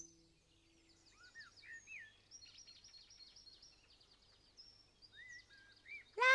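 Songbirds trilling and chirping over a quiet background, with a few held music notes fading out in the first second. Just before the end a loud, high-pitched voice-like call starts.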